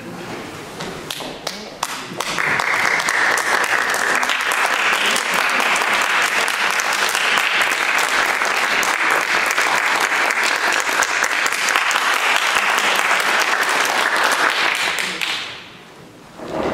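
Audience applauding: a few scattered claps at first, swelling into steady applause about two seconds in, then dying away near the end.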